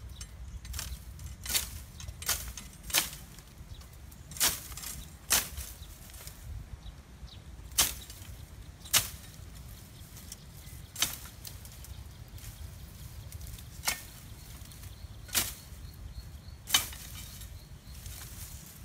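Machete swinging and slashing through thick grass and brush: about a dozen sharp, brief cuts at uneven intervals of one to two seconds.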